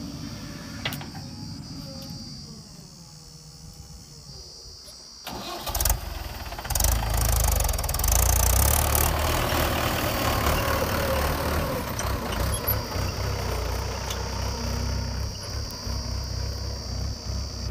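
Diesel engines of a Mahindra 415 DI tractor and a JCB 3DX backhoe loader running as the trolley is loaded. About five seconds in, the engine sound suddenly gets much louder and stays as a steady low drone.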